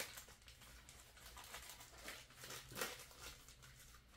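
Faint rustling and handling of small parts' packaging, with a light click at the start and a louder crinkle about three seconds in.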